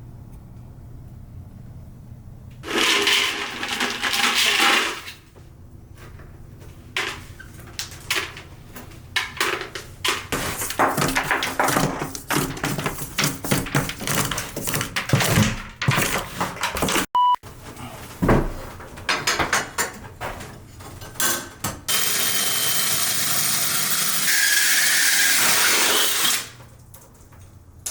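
Renovation work in a small tiled room: many short knocks and scrapes, and two runs of a motorized tool, a short one a few seconds in and a longer, steady one near the end.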